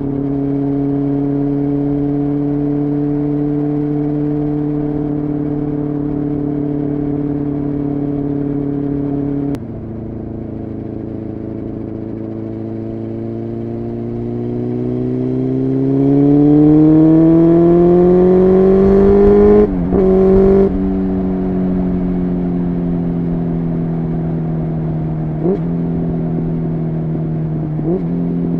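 Honda CBR600F3's inline-four engine under way: a steady note that drops suddenly about ten seconds in as the throttle closes, then climbs in pitch under acceleration. A quick upshift comes around twenty seconds in, with two short breaks, and the engine settles to a steady, lower note.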